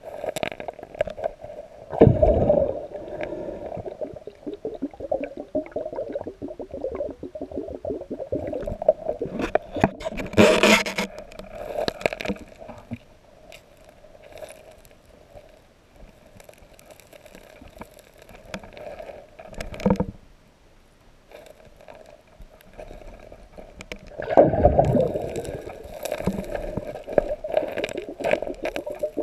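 Muffled underwater sound of a gloved hand digging and fanning river gravel out of a bedrock crack, rocks scraping and knocking against each other, with a few louder knocks and scrapes spread through.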